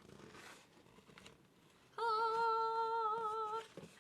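A woman's voice sings one held, slightly wavering "ahh" note for about a second and a half, starting about halfway in: a mock heavenly-choir sound as a box is opened.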